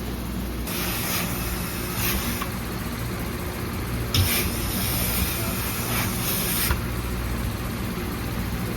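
Two bursts of steam hissing from a garment steam press as denim jeans are pressed, each lasting about two seconds, over a steady low machine hum.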